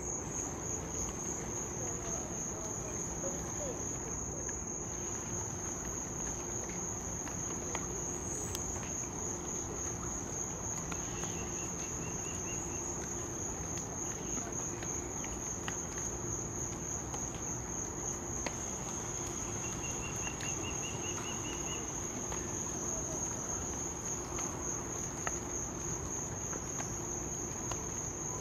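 An insect trilling without pause: a continuous, high-pitched, finely pulsing buzz over a faint background hiss. Twice it is joined by a short, lower trill.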